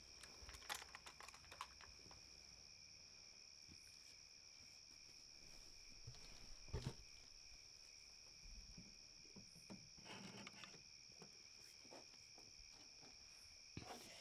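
Near silence: a faint, steady, high-pitched insect-like trill, with a few soft rustles and light clicks.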